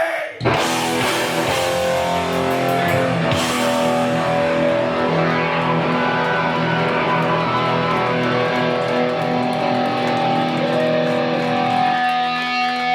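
Amplified electric guitars of a live hardcore band holding long, ringing chords, after a brief break just after the start.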